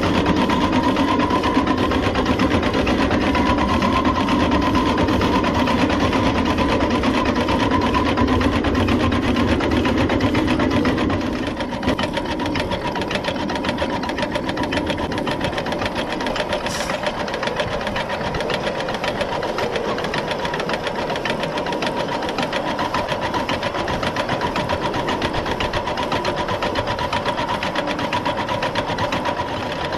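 Coal-fired 7½-inch-gauge live-steam model of a Long Island Rail Road H-10 2-8-0 running under steam, heard up close from alongside: fast, steady, rhythmic exhaust beats mixed with the clatter of its rods and wheels. It gets a little quieter about eleven seconds in.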